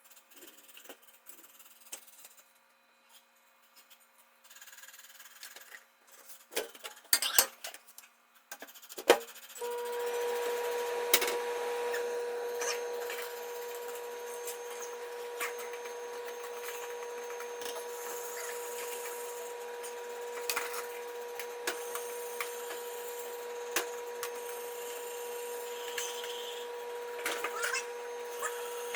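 Scattered knocks and handling noises, then about ten seconds in a small electric power-tool motor starts and runs steadily with a constant hum over a rough, scratchy noise.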